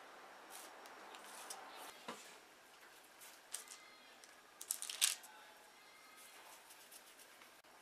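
Faint crinkling and light ticks of baking paper and plastic wrap handled under the fingers while matcha cookie dough is set out and pressed; a short burst of crinkles about five seconds in is the loudest.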